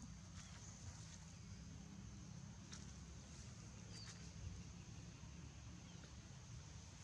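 Quiet outdoor ambience: a faint steady high-pitched insect hum over a low rumble, with a few light ticks and crackles, about three seconds in and again a second later.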